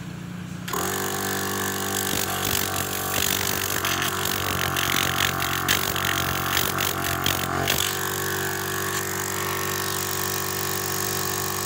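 The 12-volt motor of a converted MVP Pro-Tech 16-litre air compressor switched on and starting up about a second in, then running with a steady hum. For the first several seconds air hisses and sputters from the brass outlet fitting on top, cutting off about eight seconds in, while the motor runs on smoothly.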